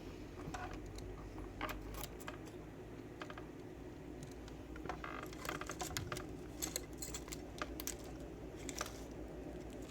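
Small metal tools and lock parts clinking and tapping on a workbench as someone rummages among them: scattered light clicks that come more often in the second half, over a faint steady hum.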